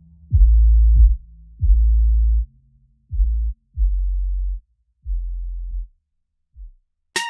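Electronic background music: a run of deep sub-bass notes, each struck and held, fading lower in level one after another. A brighter beat with sharp percussion and higher synth notes comes in at the very end.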